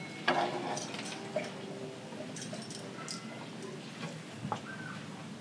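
Light kitchen clatter from cooking utensils: one sharp knock about a third of a second in, then scattered soft clicks and taps.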